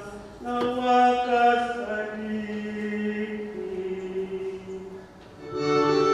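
A church choir sings a slow, chant-like liturgical acclamation in long held notes. About five and a half seconds in, a keyboard comes in and the sound becomes fuller and louder.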